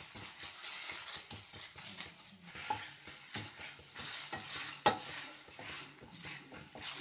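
Wooden spatula stirring and scraping a thick onion-tomato masala with ground chilli and coriander in a ceramic-coated frying pan, over a light sizzle as the spice powders are sautéed to cook off their raw smell. One sharp knock about five seconds in.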